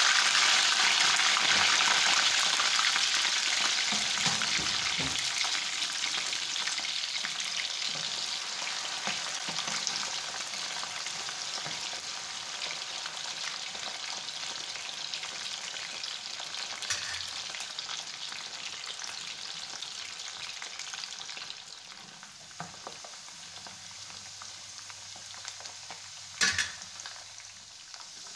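Cut potato fries deep-frying in hot oil in a steel pan: a loud sizzle just after they go in, dying down steadily as the water cooks out of the potatoes. One sharp knock near the end.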